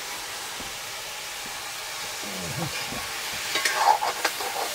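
Sliced radish frying in an iron wok over a wood fire, with a steady sizzle. About three and a half seconds in, a metal spoon scrapes and clinks against the pan as it is stirred.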